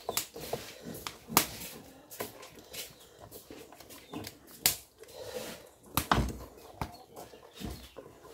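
A wooden spoon stirring thick green-corn porridge (angu) in a large aluminium pot, giving irregular knocks and soft thuds, a few of them sharp.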